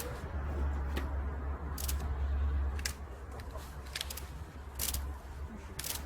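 Scattered light clicks and taps of small alternator parts being handled during reassembly, over a steady low rumble that eases off about three seconds in.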